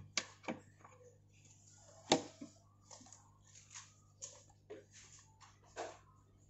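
A series of small, irregularly spaced clicks and scrapes, the loudest about two seconds in, over a steady low electrical hum.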